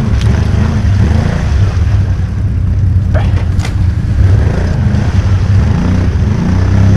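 ATV engine running under load, its revs rising and falling as the rider works the bike through a stuck spot. A couple of short knocks come about three seconds in.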